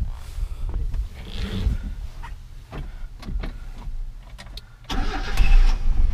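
1986 Mazda B2000's 2.0-litre carbureted inline-four being started: a few clicks and knocks, then the starter cranks about five seconds in and the engine catches and settles into a steady low running hum at the very end.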